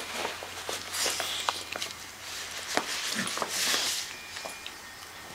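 Rustling and scraping of a puppy's fabric cone collar as the dog squirms on carpet, with scattered small clicks and knocks; two longer rustles come about a second in and near four seconds in.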